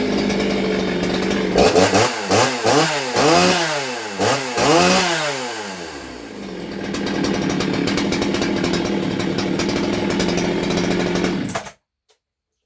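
Poulan 3750 Bad Boy two-stroke chainsaw with a 60cc cylinder and the muffler baffle pulled out, idling, then blipped up and down about five times in quick succession about two seconds in. It settles back to a steady idle and is shut off abruptly near the end.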